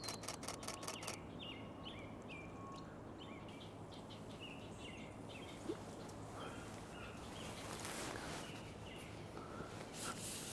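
Short, repeated bird chirps, which the birder takes to be a fledgling or two calling from a nest. A rapid burst of about eight camera shutter clicks comes right at the start.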